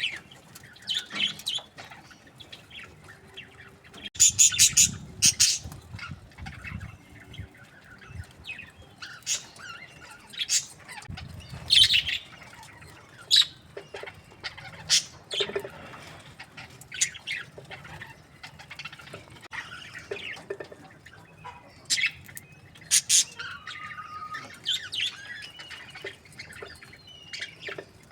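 Budgerigars chirping and squawking in many short, sharp calls, with bouts of wing flapping.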